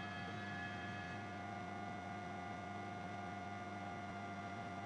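A steady, even hum made of several fixed tones, with no speech over it.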